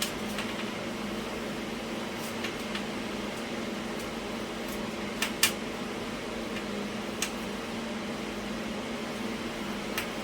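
A steady mechanical hum with scattered light clicks and taps, the sharpest a pair about five seconds in.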